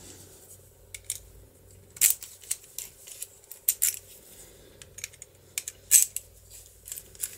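Irregular small metallic clicks and taps of a key being worked into and turned in a DOM IX lock cylinder, with the sharpest clicks about two, four and six seconds in.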